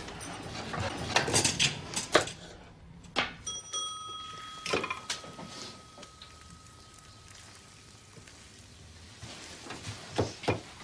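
A single bright bell ding that rings on and fades over about four seconds, after a few knocks and clicks.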